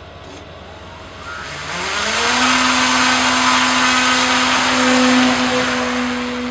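A small hand-launched unmanned aircraft's propeller motor spinning up: a whine rises in pitch for about a second, then holds steady with a loud rushing hiss. Near the end the sound starts to fade as the aircraft is launched and flies off.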